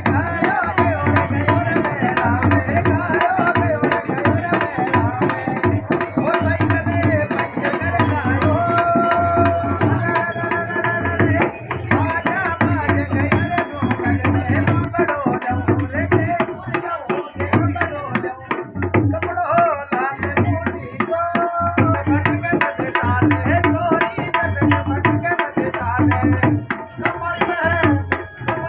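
Rajasthani folk music accompanying a puppet show: a hand drum plays a steady beat under a wavering, ornamented melody line.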